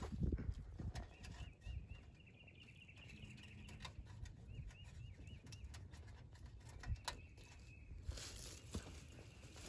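Light clicks and taps of thin wire being bent and twisted around the steel tubes of a farm gate while garden netting is fastened to it, over a low outdoor rumble. A faint, high, wavering call repeats for a few seconds near the start.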